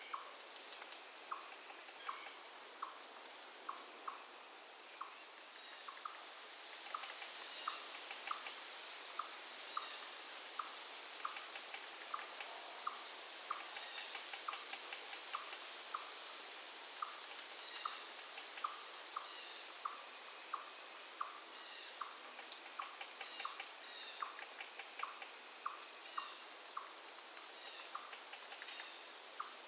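Natural outdoor ambience: a steady, high insect chorus like crickets, with a regular pulsing call repeating a little under twice a second and scattered short, sharp bird chirps.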